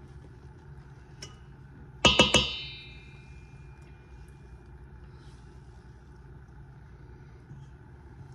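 A stainless steel mixing bowl knocked a few times in quick succession with a utensil, about two seconds in, ringing briefly after the strikes; a faint click comes a second earlier. Otherwise only a low steady hum.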